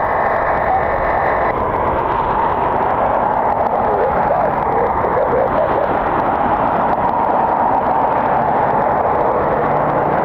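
Jet airliner engines running, a loud, steady roar.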